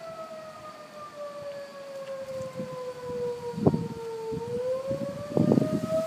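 Outdoor tornado warning siren wailing, its pitch falling slowly for about four seconds and then rising again. A few short low thumps come about midway and near the end.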